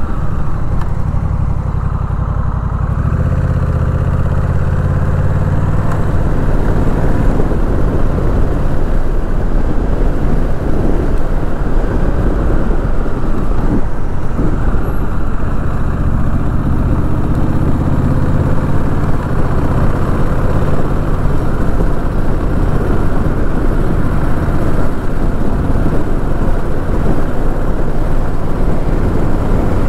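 Honda Rebel 1100's parallel-twin engine running as the motorcycle rides along, its pitch rising and falling with the throttle, over road and wind rush.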